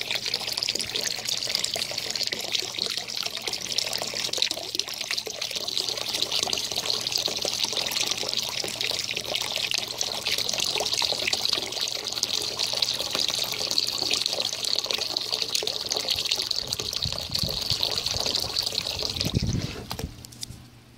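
Steady stream of water from a garden hose splashing into a plastic kiddie pool. It fades away near the end, with a few low knocks.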